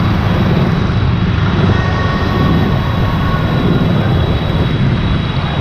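Motorbike riding at speed: a steady, loud rush of wind on the microphone over the bike's engine and tyre noise.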